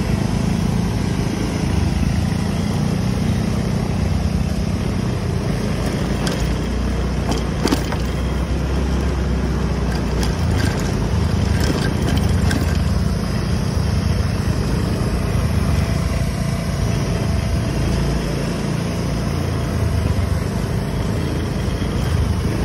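Vehicle engine running steadily with road noise, with a few short sharp clicks partway through.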